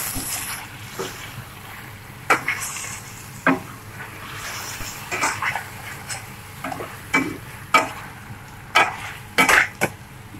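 A utensil stirring chicken pieces in a metal pot, with a dozen or so irregular scrapes and knocks against the pot over a steady hiss of the pot cooking.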